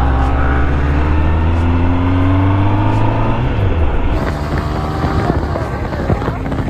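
Kawasaki Ninja ZX-10R's inline-four engine accelerating, its note rising steadily for about three and a half seconds and then dropping off. After that the engine sinks under wind rush on the microphone.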